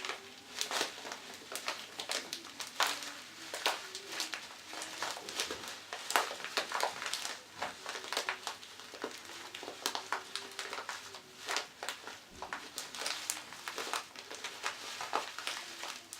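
Plastic packet of thin vermicelli squeezed and crumpled by hand, giving dense, irregular crackles and crinkles: a foley imitation of a campfire crackling.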